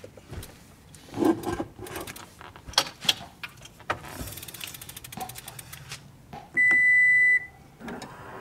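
Folded electric bike being loaded into a car boot: several knocks and clunks of the frame against the boot, then a quick run of rapid ticking. Then one loud, steady beep lasting under a second from the car's power tailgate, with the tailgate motor starting to hum near the end.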